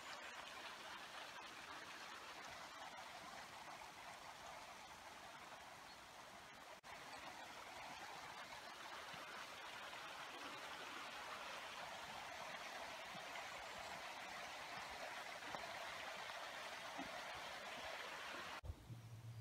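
Faint, steady rushing of a small mountain stream running below a forested valley, dropping out just before the end.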